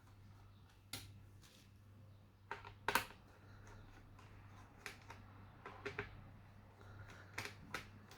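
Scattered light clicks and taps from handling an HP 255 G5 laptop and small tools while working on it for a RAM upgrade, about seven in all, the loudest about three seconds in, over a steady low hum.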